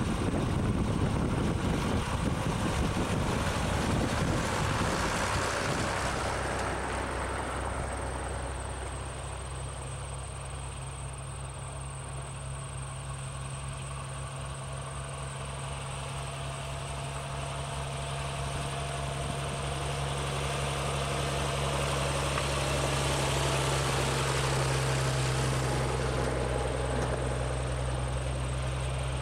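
Farm tractor engines running as tractors in a procession drive past one after another: a loud close pass at the start, then a steady low engine drone that grows louder again as the next tractor approaches later on.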